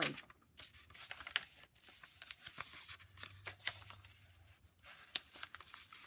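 Paper booklet pages being handled and turned by hand: quiet rustling with scattered small clicks and crinkles.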